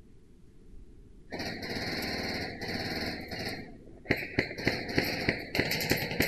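Airsoft electric gun firing on full auto: a long rattling burst starting about a second in and lasting about two seconds, then from about four seconds a series of shorter bursts and single sharp clicks, echoing in a large brick hall.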